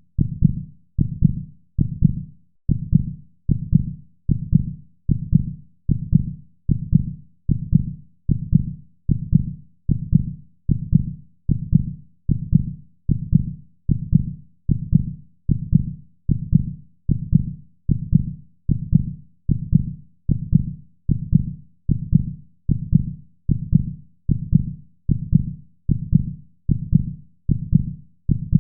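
Rhythmic heartbeat sound: steady low lub-dub beats repeating evenly at roughly one beat a second.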